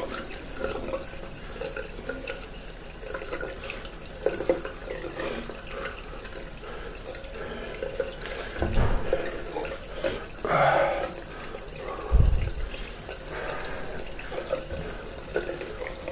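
Hands splashing and rubbing water over a face, rinsing off after a wet shave. Two dull thumps stand out, about nine and twelve seconds in, the second the louder.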